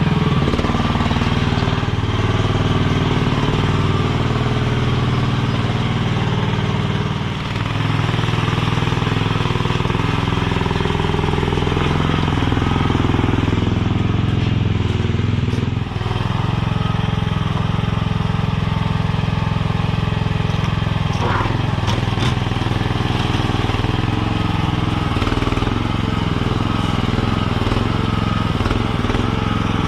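Mini skid steer engine running steadily while the loader carries a scoop of wet sand, with a few short clanks about two-thirds of the way through.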